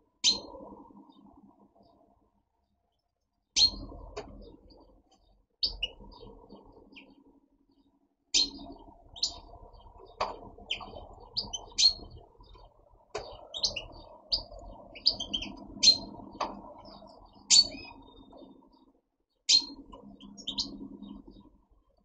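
Caged European goldfinches giving short, sharp chirping calls, about twenty of them, bunched most thickly in the middle stretch.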